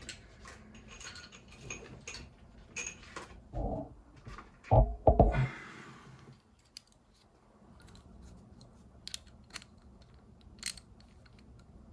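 Small metal motor parts and screws clicking and clinking as they are handled and fitted, with a few heavier dull knocks about four and five seconds in.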